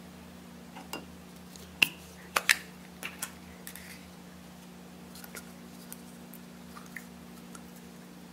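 Sharp clicks and taps of plastic Play-Doh tubs being handled and opened, loudest in a cluster about two seconds in, then a few softer ticks, over a low steady hum.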